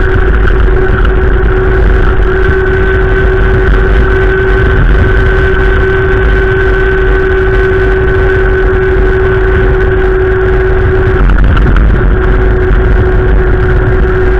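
Gusty wind buffeting the microphone as a loud, steady low rumble, with two steady tones, a low hum and a higher whine, running through it.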